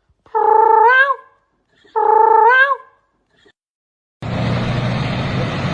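A short, meow-like call used to lure a cat, sounded twice: each a held note that bends upward at the end, the two alike as if played back from a recording. About four seconds in, a steady loud noise with a low hum starts abruptly.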